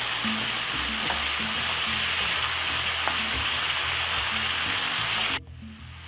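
Seasoned beef strips sizzling steadily as they fry in hot oil in a stir-fry pot; the sizzle cuts off suddenly about five seconds in.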